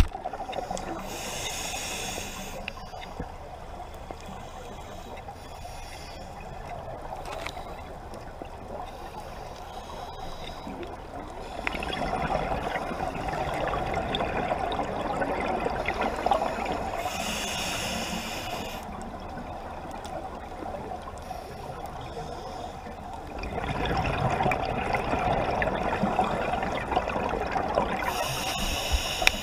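Scuba diver breathing through a regulator underwater: three short hissing inhalations, near the start, about two-thirds through and at the very end, with two longer stretches of bubbling exhalation between them.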